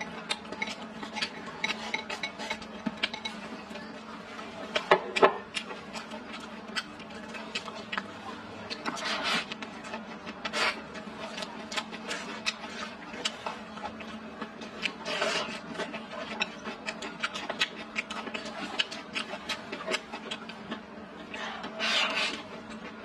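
Close-up eating: chewing and mouth noises, with chopsticks clicking and scraping against a wooden bowl. There are a few longer rushes, the last near the end as food is shovelled in from the bowl's rim, over a steady low hum.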